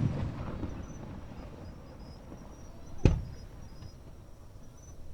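Aerial fireworks shell bursting with a single sharp boom about three seconds in, after the rumbling echo of an earlier burst dies away at the start.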